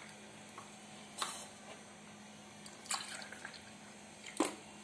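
Water splashing and dripping as a glassful is poured into wheat flour, heard as three short splashes about a second and a half apart, the last one the loudest.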